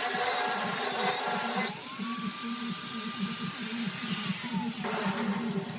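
A handheld power tool at work: a loud grinding hiss that stops after under two seconds, then the tool's whine rising, running steady and free, and winding down near the end.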